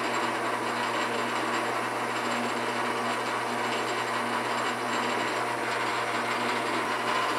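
Metal lathe running steadily while its tool turns a 12L14 steel bar, a constant whir with a low hum. Speeds and feeds are deliberately set wrong, so the chips come off in long unbroken strings instead of breaking.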